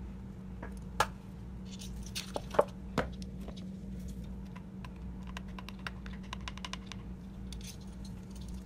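Light clicks and taps of a metal measuring spoon and spice jars against a glass mixing bowl as spices are measured into dry breading mix: a few sharper knocks in the first three seconds, then a run of quick small ticks. A steady low hum sits underneath.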